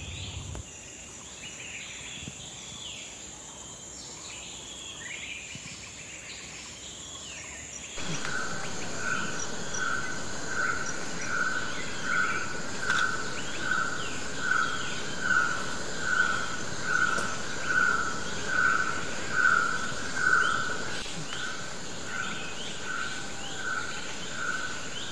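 Tropical forest insect chorus: a steady high-pitched whine with scattered bird chirps. About eight seconds in, a louder insect call takes over, pulsing about three times every two seconds.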